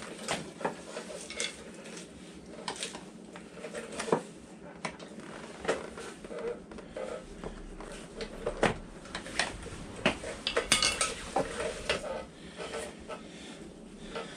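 Metal tools clinking and knocking against metal parts in an irregular run of sharp clinks, some in quick clusters.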